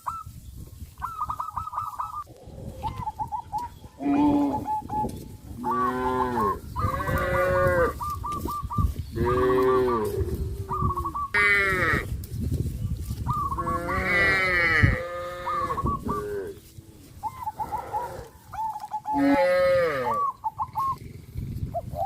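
Cattle mooing, one call after another, with about eight calls of a second or so each, some rising and falling in pitch. Between the calls come runs of quick, short high chirps.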